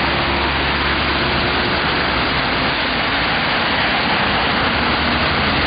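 Steady, loud rush of heavy rain, with a vehicle engine running low underneath.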